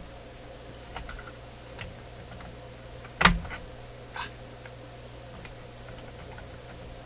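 Small clicks and taps of hand tools and parts being handled at a workbench, with one sharp, loud click about three seconds in and a smaller one about a second later, over a faint steady hum.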